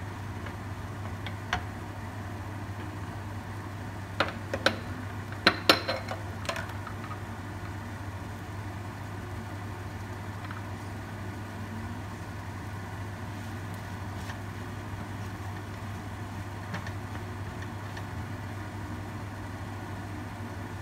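Wooden spatula knocking and scraping against a nonstick wok while rice is stir-fried. There is one knock early on, then a quick cluster of knocks about four to seven seconds in, over a steady low hum.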